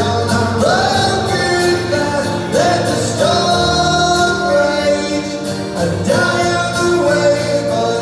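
Live acoustic song performance: a man singing long, held notes over strummed acoustic guitar and keyboard.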